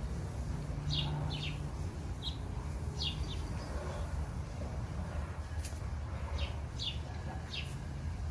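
Small birds chirping: about ten short, high chirps spaced irregularly, over a low steady rumble.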